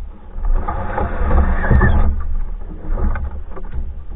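Solo canoe paddling: a rushing wash of water from a paddle stroke that cuts off about halfway through, followed by scattered small splashes and knocks, over a steady low rumble.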